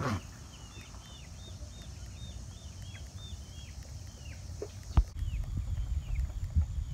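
A bird chirping over and over: short high notes that each fall in pitch, about three a second. About five seconds in there is a sharp knock, and after it a low rumble sits under the chirps.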